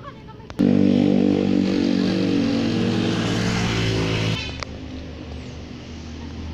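Motor vehicle engine running close by: a loud, steady drone that starts suddenly about half a second in and cuts off suddenly a little after four seconds, leaving a quieter engine hum.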